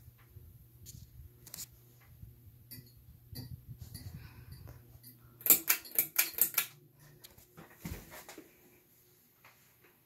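Litex hugger ceiling fan motor running with a low hum. About halfway through, a quick run of sharp clicks and rattles comes from its beaded pull chain being pulled.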